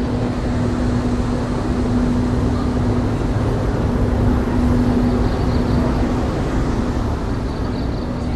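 EF65 electric locomotive pulling a train out past at low speed: a steady rumble with a steady hum that weakens about five seconds in, as the coaches follow the locomotive by.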